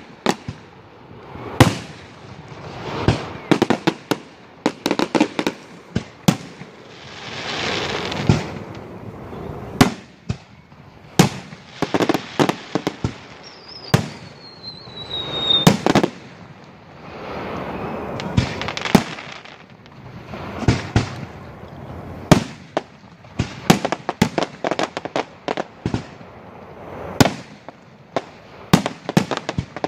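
Aerial fireworks display: a steady run of shell bursts, sharp bangs, some in quick crackling clusters, with a thin whistle falling in pitch about halfway through.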